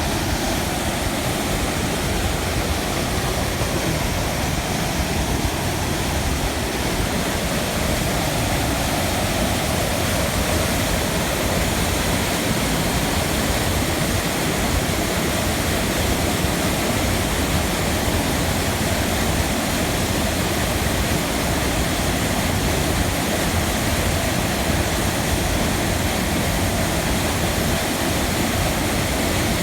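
Rushing river water: a steady, loud wash of flowing water.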